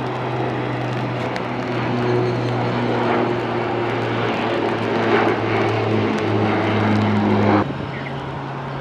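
Dash 8 Q400 turboprop climbing out after takeoff: a steady propeller drone with engine noise, slowly getting louder. It cuts off abruptly about a second before the end, giving way to a quieter steady hum.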